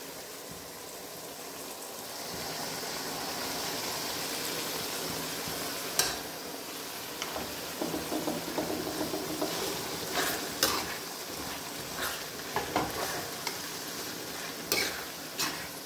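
Boiled mutton liver pieces sizzling as they fry in onion-tomato masala in a metal pan. The hiss swells about two seconds in, and a metal spoon scrapes and clinks against the pan now and then as it stirs.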